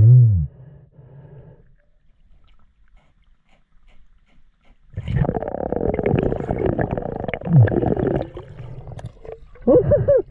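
Muffled underwater sound picked up by a submerged camera. It opens with a short, loud, groan-like vocal sound falling in pitch, then goes quiet for about three seconds. About five seconds in comes roughly three seconds of churning water and bubble noise with a low rumble as the riverbed silt is stirred up, and near the end a few short muffled vocal sounds rise and fall in pitch.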